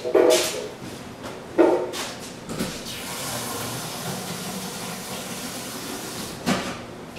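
A few knocks and clatters, then water running steadily from a tap for about four seconds as a container is filled, ending with a knock.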